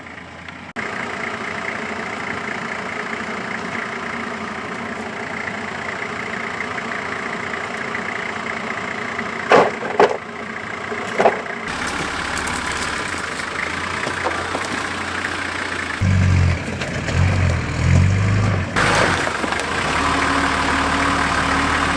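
A 4x4's engine running at low revs as it crawls on rocky ground, with three sharp knocks around the middle and heavier low rumbling surges near the end.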